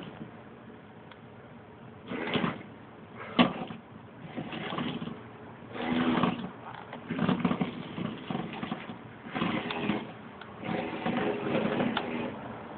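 Small DC gear motors of a tracked tank robot whirring in repeated short bursts of about half a second to a second and a half as it drives and turns. There is one sharp click about three and a half seconds in.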